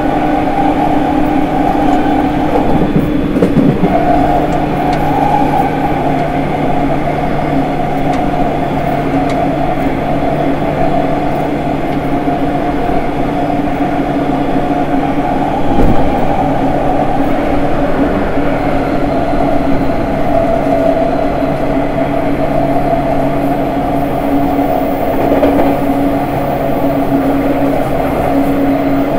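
JR East E231-1000 series commuter train running, heard at the steel gangway plates between cars: steady electric tones from its updated later-type Hitachi IGBT-VVVF inverter and traction motors over rail rumble. A lower tone joins a few seconds in, and there is a loud thump about halfway through.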